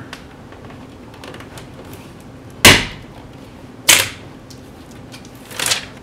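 Plastic clip-on cover plate snapping onto a wall dimmer switch: two sharp snaps about a second apart, then a softer one near the end.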